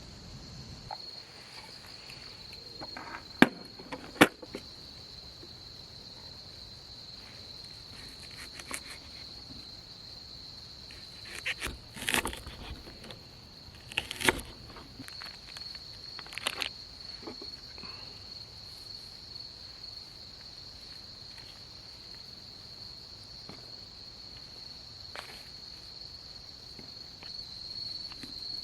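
Insects trilling steadily on one high-pitched note. Two sharp clicks come about four seconds in, and a few short knocking or rustling noises follow between about twelve and seventeen seconds.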